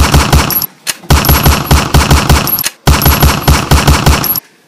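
Automatic gunfire sound effect: three loud bursts of rapid, evenly spaced shots, each about a second and a half long with short gaps between, stopping abruptly near the end.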